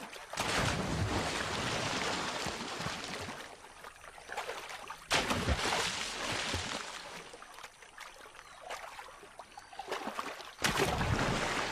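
Male yacare caimans in a courtship head-slap display: three sudden splashes about five seconds apart, each as a head and jaws come down on the water, followed by the rush of spray falling back.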